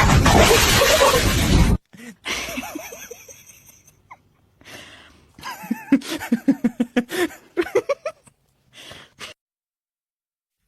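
A loud rushing noise that cuts off suddenly about two seconds in, followed by short, separate bits of sound, among them a person laughing in quick pulses; then silence.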